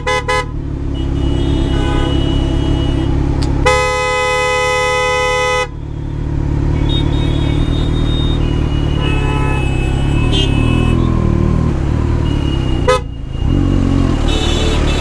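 Heavy road traffic heard from a moving motorcycle: steady engine and road rumble, with vehicle horns honking several times. The loudest is a single horn blast of about two seconds, about four seconds in.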